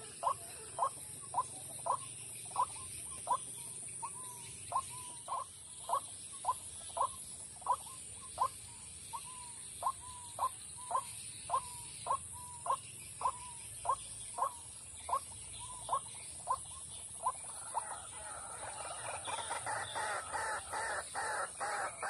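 White-breasted waterhen calling: a monotonous string of short, evenly spaced notes, about one and a half a second. Near the end it breaks into a faster, louder run of harsher notes. A steady high-pitched buzz runs behind.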